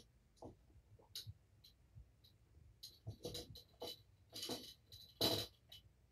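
Kittens playing and scuffling on a carpeted floor: irregular soft scratches, rustles and light clicks, the loudest a little after five seconds in.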